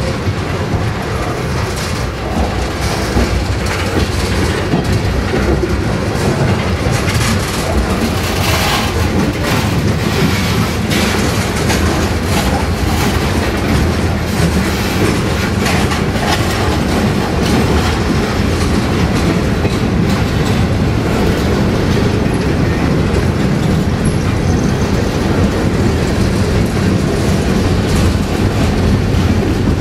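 Freight cars of a passing manifest train (tank cars, covered hoppers and boxcars) rolling by close at hand: a steady rumble of steel wheels on rail, with repeated clacks as the wheels cross the rail joints.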